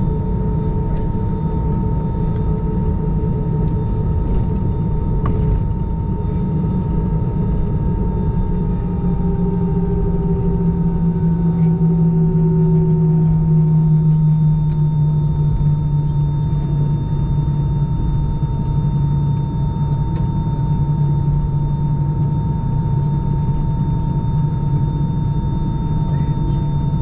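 Cabin rumble and engine hum of an Airbus A220 taxiing, heard from inside the cabin, with its Pratt & Whitney PW1500G geared turbofans running at low power and a steady whine above the rumble. About ten seconds in the hum deepens and grows a little louder as one tone slides slightly lower.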